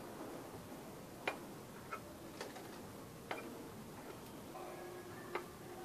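Knife blade cutting a frozen cheese slice into small strips, clicking sharply on the hard countertop about five times at uneven intervals.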